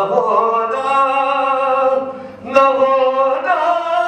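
A man singing a naat (Urdu devotional poem) unaccompanied, stretching the words into long held notes. One drawn-out phrase breaks off about two seconds in, and a second held phrase starts sharply about half a second later.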